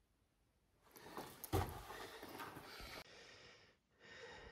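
A man's soft breath close to the microphone, breathed out through the nose, with a brief bump about a second and a half in; it cuts off near three seconds and fainter hiss follows.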